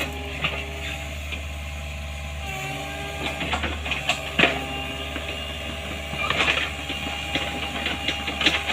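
Excavator running steadily, with a whine and scattered sharp knocks and clanks. The sharpest knock comes about four and a half seconds in, and the work gets busier from about six seconds in.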